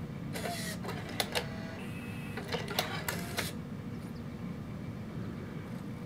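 Bose Lifestyle 20's CD changer mechanism loading disc 3 and cueing track 1: short motor whirs and about six sharp clicks in the first three and a half seconds, then only a faint steady low hum.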